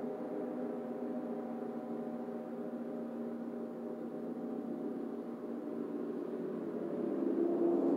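Large suspended gongs played with mallets, ringing on in a sustained wash of many overlapping steady tones that grows louder near the end.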